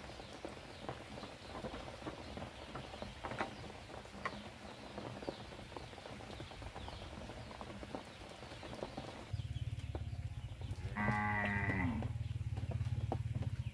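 A farm animal gives one drawn-out call, about a second long, near the end, over a steady low rumble that sets in shortly before it. Earlier there are only light scattered ticks and knocks.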